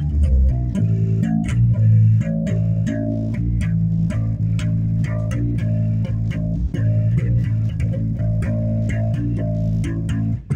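Bass guitar played solo, a steady line of plucked low notes, with a brief break near the end.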